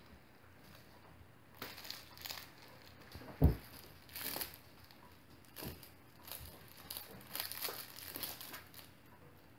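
Irregular crunching and crinkling from five-week-old puppies chewing dry kibble from a bowl, with one sharp thump about three and a half seconds in.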